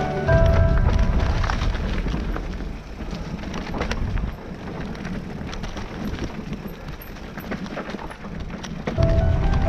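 Mountain bike riding down a stony dirt singletrack, heard from a helmet camera: wind buffeting the microphone in a low rumble, with the tyres and bike rattling over stones in many short sharp clicks. Background music fades just after the start and comes back near the end.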